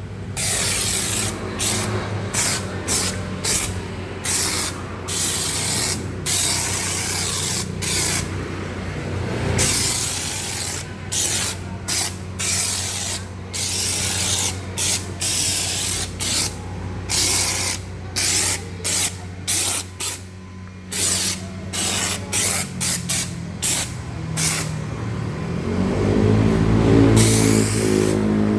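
Electric snow-foam sprayer with a DC pump, spraying in many short on-off bursts of hiss over the steady hum of the running pump. Near the end a louder pitched machine sound builds up.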